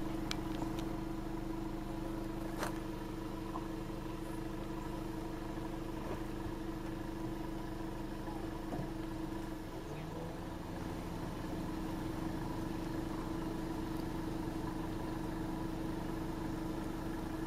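Car engine idling with a steady, even hum, heard through the car's open window, with a few faint ticks.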